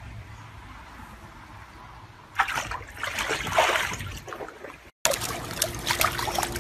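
Pool water sloshing and splashing as a yellow retriever wades and rears up against an inflatable ring, after a faint low hum at first. After an abrupt cut about five seconds in, a golden retriever puppy held in a pool paddles with its front paws, slapping the water in quick little splashes.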